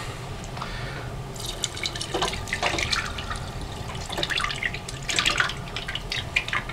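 Honey liqueur pouring from a glass bottle through a metal sieve into a stainless steel pot, gurgling and splashing in uneven spurts as it leaves the bottle neck.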